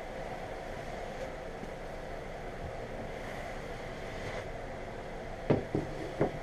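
Wooden hand tools set down on a plywood worktable: three sharp knocks close together about five and a half seconds in, over steady background noise.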